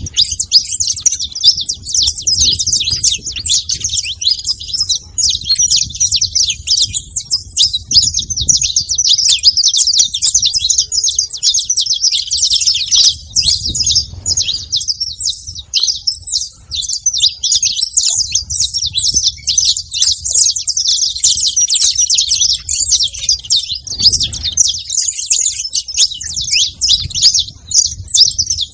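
A flock of saffron finches chirping together: a dense, continuous chatter of many overlapping short, high calls, with a low rumble underneath.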